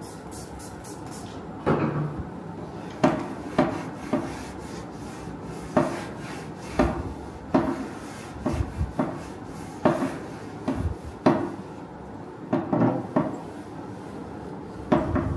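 Wooden dining chairs being handled and wiped down: irregular short wooden knocks and bumps, about a dozen in all, with cloth rubbing over the seats and rattan backs.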